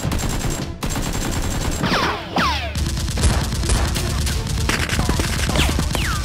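Rapid gunfire sound effects, shots fired in quick bursts, with falling ricochet whines about two seconds in and again near the end.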